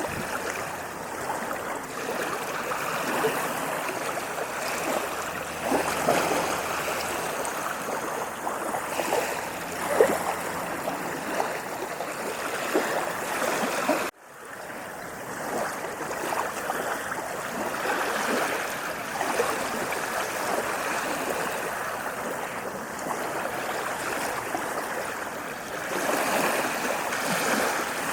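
Continuous rush of waves washing on a sandy beach, swelling and easing as the waves come in. About halfway through the sound cuts out abruptly and fades back in.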